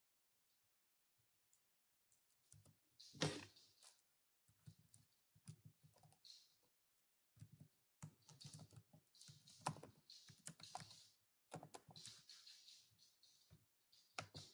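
Faint computer keyboard typing: quick runs of keystrokes with short pauses, starting about two seconds in.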